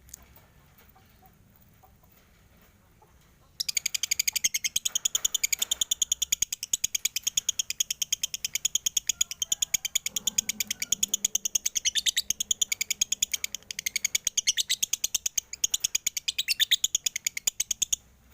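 Male lovebird chattering in a long unbroken run of rapid, sharp, high-pitched chirps, many a second. It starts about three and a half seconds in and runs for some fourteen seconds. This is the extended chatter that keepers call 'konslet'.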